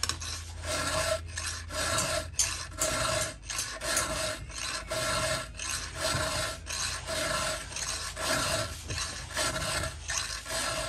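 Round chainsaw file rasping back and forth across a saw-chain cutter tooth, about two strokes a second, sharpening a tooth whose corner has been knocked off.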